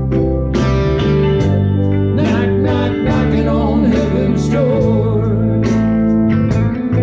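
Live band playing a blues-country rock song: electric guitar and bass guitar over a steady beat, with a man singing.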